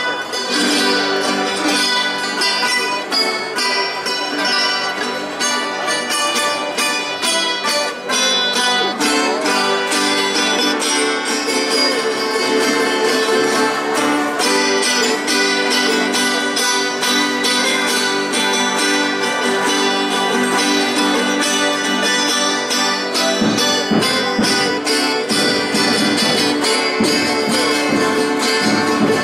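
A street ensemble of violas amarantinas, the wire-strung, double-coursed folk guitars of Amarante, with other small guitars, strumming and picking a lively folk tune together. Deeper low notes join in near the end.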